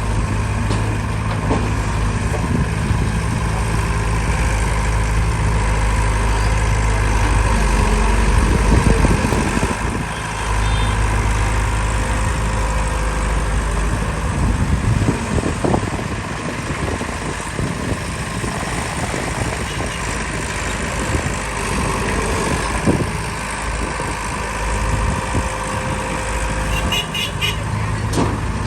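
Backhoe loader's diesel engine running: a steady low hum for the first several seconds, then shifting in pitch and load through the middle as the machine works, settling back to a steady hum near the end.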